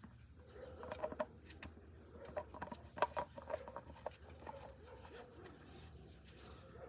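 Faint clicks and scrapes of a new spin-on oil filter being threaded onto the engine by hand, a cluster of small ticks in the first few seconds, then quieter.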